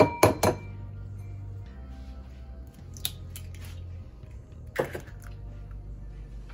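An egg knocked against the rim of a ceramic bowl: three sharp cracks in quick succession, then two fainter clicks of shell as it is pulled open and the egg slides in. Background music plays throughout.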